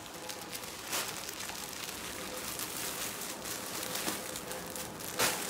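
Rustling and handling noises of a person moving among plastic-bagged clothes, over a steady hiss, with a sharp rustle or knock about one second in and another near the end.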